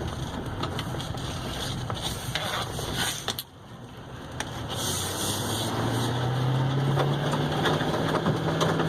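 Gravel stones flicking out of the treads of a Duramax diesel dually pickup's tires as it pulls away, heard as scattered sharp clicks and pings over tire and road noise. Partway through, the engine's low drone comes up and rises a little in pitch as the truck picks up speed.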